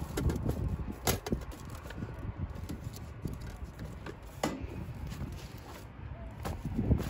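Camping gear being handled in a wicker basket: a few light knocks and clicks, the sharpest about a second in and about halfway through, over a steady low rumble.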